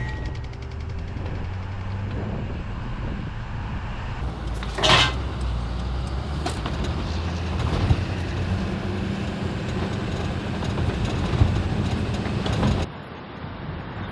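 2005 Chevy Kodiak C4500 ambulance truck driving, a steady low engine and road rumble. A short loud noise comes about five seconds in. The rumble cuts off abruptly near the end.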